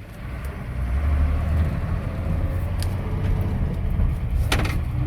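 A vehicle engine running with a steady low rumble that grows louder about a second in, and a single sharp knock near the end.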